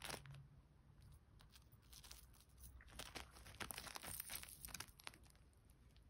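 Faint crinkling and clicking of plastic packaging as a cockatiel picks at it with its beak, busiest around three to five seconds in.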